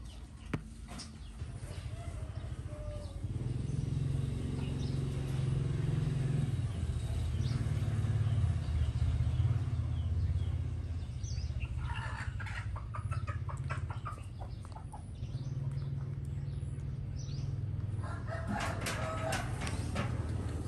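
A low rumble throughout, with chickens clucking in short rapid runs about midway and again near the end.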